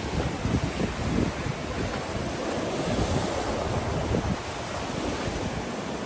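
Surf breaking and washing up a sandy beach, with wind buffeting the microphone in gusts.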